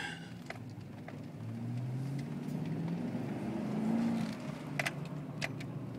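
Car engine and road noise heard from inside the cabin while driving on a snowy road. The engine hum rises a little in pitch and swells around the middle, and a few sharp clicks sound near the end.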